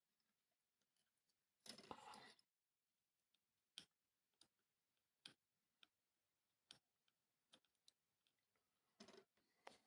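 Very faint scattered clicks and taps, about one a second, with a short rustle about two seconds in and another near the end: small objects being handled on a workbench.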